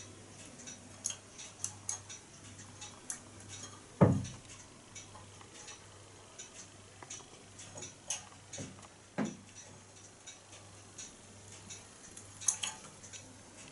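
Meths-fired coil-type pop-pop boat running almost silently on bath water: only faint, irregular ticks and clicks, with two dull thumps about four and nine seconds in.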